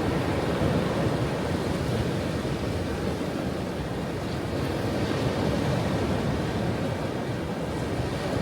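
Ocean surf: a continuous rush of breaking waves that swells and eases gently, with no single crash standing out.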